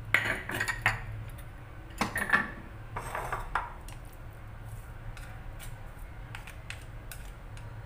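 Kitchen utensils clinking and scraping against dishes while seasoning is spooned into a spring-roll filling. There are three short clusters of clinks in the first few seconds, then a few lighter taps.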